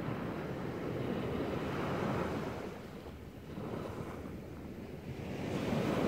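Small waves breaking and washing up a sandy beach, the surf swelling about two seconds in, easing off, and building again near the end.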